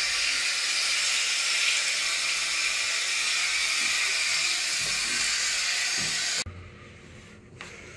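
Shower running: a steady hiss of water spray that cuts off suddenly about six seconds in.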